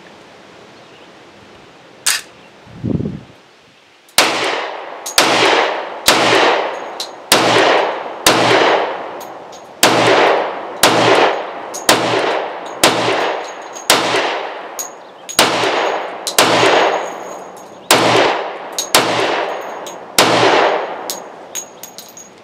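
Sig Sauer P320 X-Ten 10mm pistol fired in a steady string of about fifteen shots, roughly one a second, each cracking out and ringing away in under a second. A single click comes about two seconds in, before the first shot. The pistol runs through the string with no stoppage.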